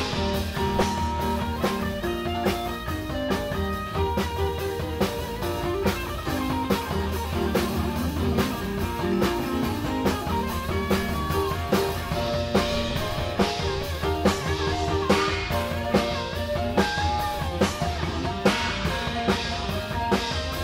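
Live rock band playing an instrumental passage: electric guitar, electric bass and drum kit, with a lead guitar line bending and wavering in pitch through the second half.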